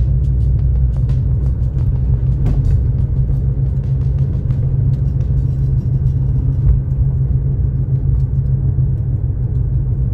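Steady low rumble of a car driving on the road.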